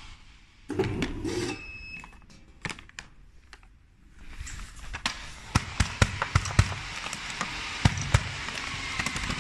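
Clear plastic packaging bag crinkling and crackling as it is handled and pressed, in scattered sharp cracks. A steady hiss comes in about four seconds in and runs under the crackles.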